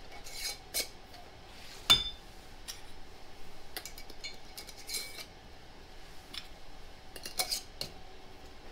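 Glass canning jars and their metal lids clinking and knocking as they are handled: a scattering of light clinks, with one sharper knock that rings briefly about two seconds in.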